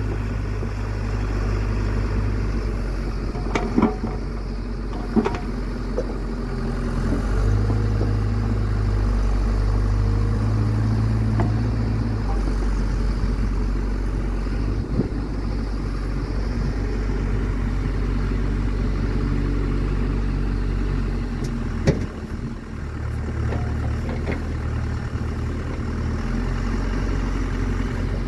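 Mecalac 12MX wheeled excavator's diesel engine running under hydraulic load while digging and swinging a bucket of soil, its note swelling and easing as the load changes. A few sharp knocks sound over it, about four and five seconds in and again past the twenty-second mark.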